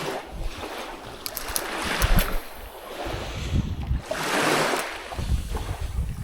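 Small waves washing onto the shore, the noise swelling and fading about three times, with wind buffeting the microphone in low rumbles.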